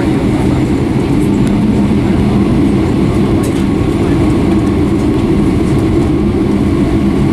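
Cabin noise of a Boeing 757-200 taxiing: a steady low rumble from the idling jet engines and the wheels rolling over the taxiway pavement, heard from inside the passenger cabin.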